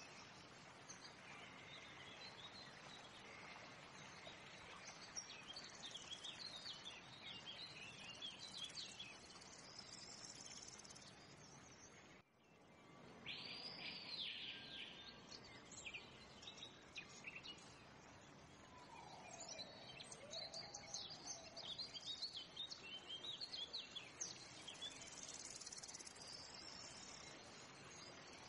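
Faint background ambience of birds chirping and whistling over a steady insect hiss, dropping out briefly about twelve seconds in.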